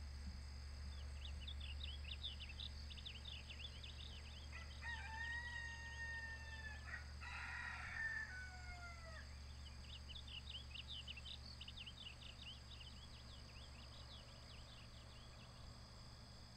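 A rooster crowing twice in a row from about five seconds in, each long call held level and then falling away at the end. Faint rapid high chirping and a steady low hum run underneath.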